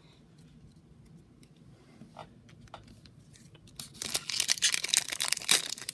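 A few faint clicks of trading cards being handled. About two-thirds of the way in, the crinkling of a shiny Pokémon booster pack wrapper starts and carries on to the end.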